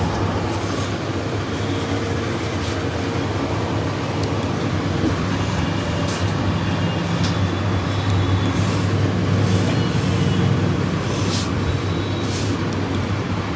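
Steady low rumble and drone of street traffic, with brief hisses now and then.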